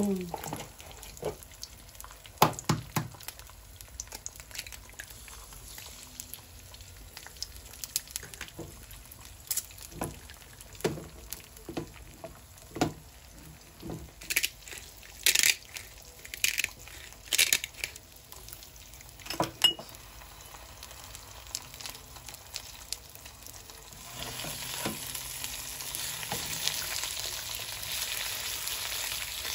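Eggs frying in a non-stick frying pan, sizzling and crackling, with scattered sharp knocks and clicks of eggshell and utensils against the pan. About 24 seconds in the sizzle grows louder and steadier.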